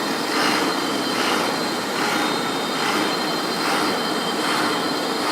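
Milling machine cutting with a 12 mm Iscar end mill on a trochoidal (peel-milling) toolpath: continuous cutting noise over a faint steady high whine, swelling about once a second as the tool repeats its looping pass.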